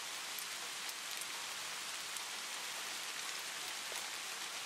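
Steady rain falling, with a few sharper drop ticks now and then.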